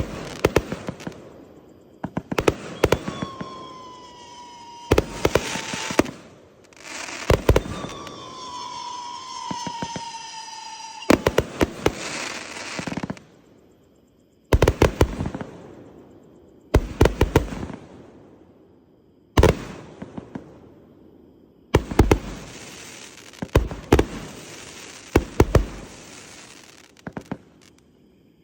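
A 208-shot fireworks cake firing in volleys of sharp bangs about every two seconds, each volley followed by a fading crackle. Twice, about three and eight seconds in, whistling effects glide downward in pitch over the bangs.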